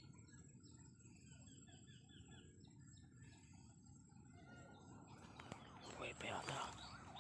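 Small birds chirping faintly in a quick twittering series for the first four seconds. Soft whispering and rustling follow near the end.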